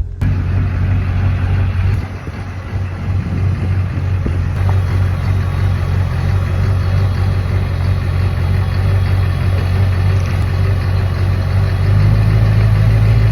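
Truck engine running steadily at low speed with a low hum, growing a little louder near the end.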